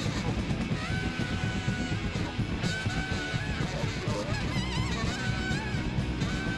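Live rock band playing: a saxophone holds long, wavering high notes over electric guitar, bass and drums.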